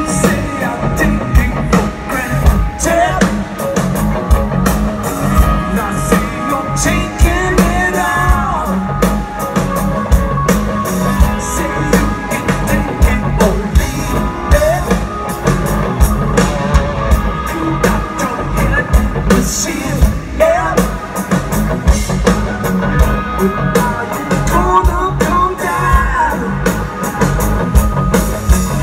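Rock band playing live, heard loud from the crowd: electric guitars and a drum kit, with the drummer singing lead.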